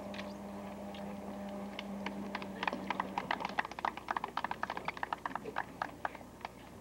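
Scattered hand clapping from a small group of guests, starting about two and a half seconds in and dying away near the end. A low steady hum runs underneath and stops about three seconds in.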